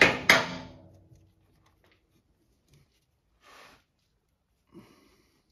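Two sharp metallic clinks, a third of a second apart, of a tool knocking against metal under the car, each ringing briefly; then quiet, with a faint short hiss about three and a half seconds in and a soft knock near the end.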